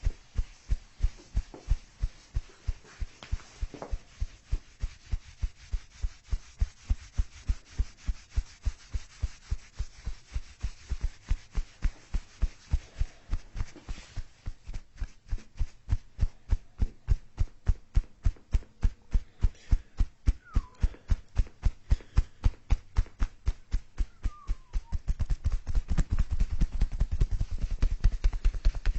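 Steady rhythmic low thumping, about three to four thuds a second, quickening and growing louder near the end.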